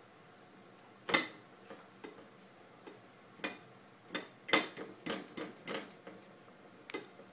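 Ceramic plate knocking on a plastic high-chair tray as a toddler pats and wipes it with a napkin. There is one sharp knock about a second in, then a run of irregular knocks.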